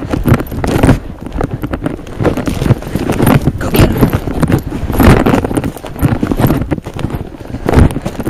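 A person running through dry brush and dead grass on wet, cut-over ground: heavy, uneven footfalls crunching and thudding, mixed with knocks from the jostled camera.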